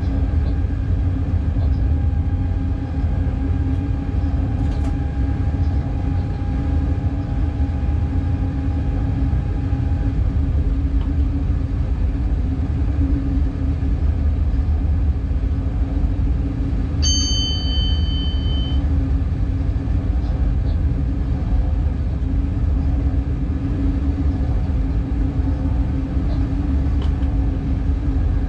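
Cab interior of a Class 186 Bombardier TRAXX electric locomotive under way: a steady low rumble of wheels and running gear on the track. A short high electronic beep sounds about two-thirds of the way through.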